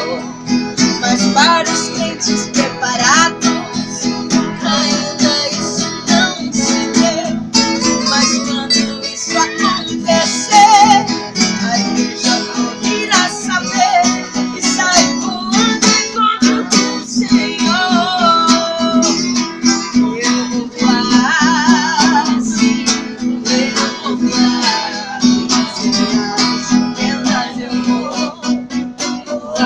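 Viola caipira and acoustic guitar playing together: steady strummed chords under plucked melodic runs.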